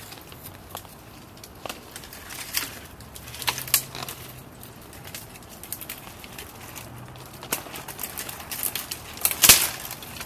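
Dry branches and twigs cracking and snapping under a person climbing through a tree, in irregular sharp snaps with rustling between them; the loudest snap comes near the end.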